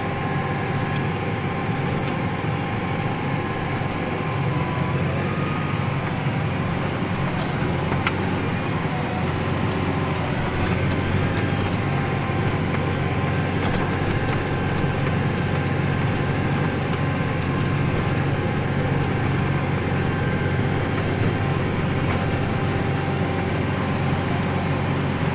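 Tractor engine running steadily while towing a pin wheel rake through stubble, heard from inside the cab as an even, unchanging drone.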